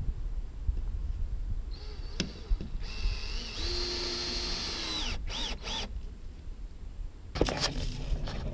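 Cordless drill driving screws into pallet wood: a short run about two seconds in, then a steady run of about two seconds that winds down as it stops, followed by two quick trigger bursts. Near the end, close rustling and knocks as the camera is handled.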